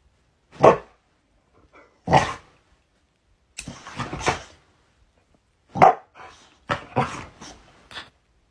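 Dog barking at a lit lighter's flame held at its face, in about six short separate barks spread over the seconds.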